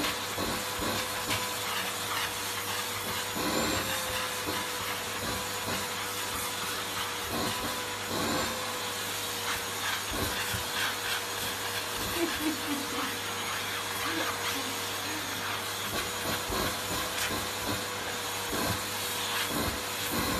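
Vacuum cleaner running steadily with a constant motor whine, its hose nozzle being drawn over a French bulldog's coat.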